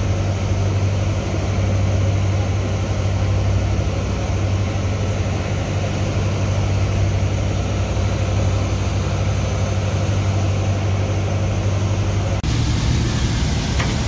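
Steady low drone of a ship's engine running. About twelve seconds in, a hiss of water spraying comes in over it, from a jet of ice slurry pouring onto fish in the hold.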